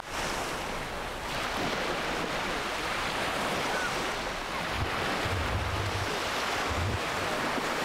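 Sea surf washing steadily onto a sandy beach, with wind rumbling on the microphone in the second half.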